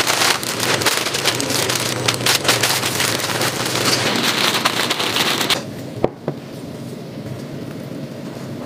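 Plastic bag crinkling and rustling as it is handled, a dense crackle of small clicks. About five and a half seconds in it stops, leaving a quieter steady hiss with one sharp click.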